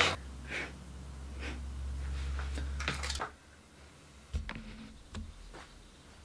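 Quiet room tone with a steady low hum that stops a little over three seconds in, and a few faint clicks, with a soft knock about four seconds in.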